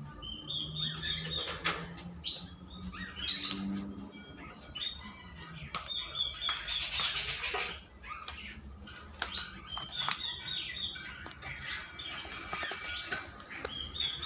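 Small birds chirping and calling over and over in short high notes, with scattered clicks and knocks and about a second of rustling near the middle.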